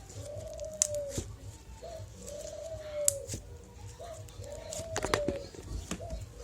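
A bird cooing over and over, a short rising note then a longer arched coo about every one and a half seconds, like a pigeon or dove. Sharp little clicks and pops of slime being squeezed and poked come through over it, a cluster about five seconds in.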